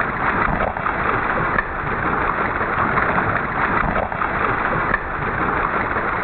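Steady rush of a shallow stream's flowing water.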